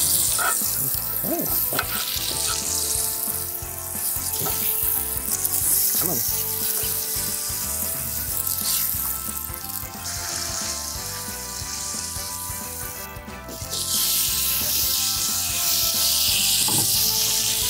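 NY strip steak sizzling as it sears on the hot grate of a Ninja Woodfire electric grill, with a few light clicks as tongs turn it over. The sizzle grows louder near the end.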